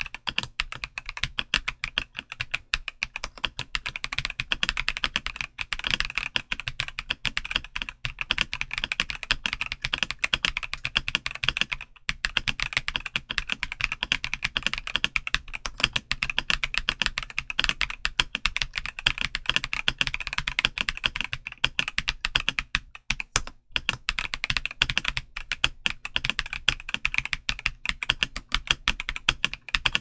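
Continuous fast typing on a Drop CSTM80 mechanical keyboard with Gateron Rose Glacier switches and doubleshot PBT keycaps: a dense stream of key clacks, broken by a couple of short pauses.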